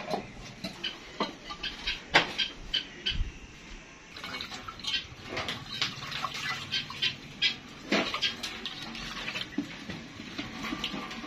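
Tap water running and splashing into a steel sink basin as a glazed clay dish is rinsed under it, with sharp clicks and knocks of the dish being handled, most of them in the first few seconds.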